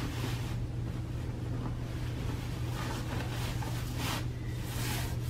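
Bed sheets and mattress covers rustling as they are lifted and pulled back in short bursts, over the steady low hum of a cruise ship cabin.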